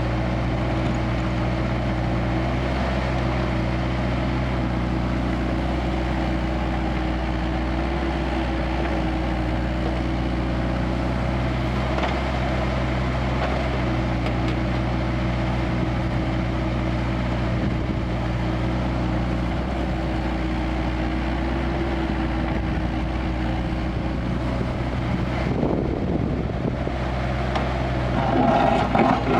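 Kubota KX161-3 mini excavator's diesel engine running steadily while the machine works. Near the end the sound changes and grows louder.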